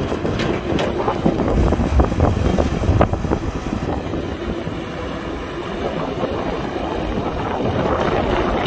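Excavator's diesel engine running steadily under load, with several sharp knocks in the first three seconds. Wind buffets the microphone.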